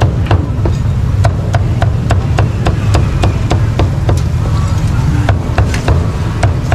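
Meat cleaver chopping pork on a thick round wooden chopping block, sharp knocks at a steady pace of about three a second. A steady low rumble runs underneath.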